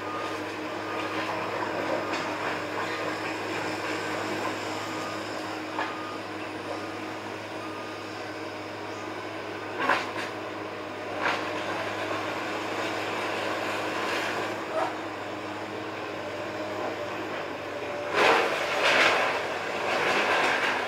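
Komatsu tracked excavator running steadily during a house demolition, its backup alarm beeping in the first several seconds. A few sharp knocks follow, then a loud burst of crashing, crunching debris near the end.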